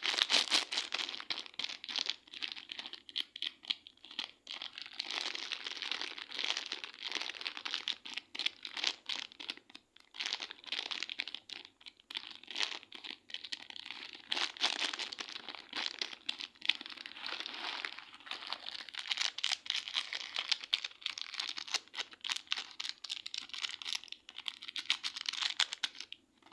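Slime being squeezed and worked by hand, a dense run of small crackling pops and clicks that stops abruptly at the end.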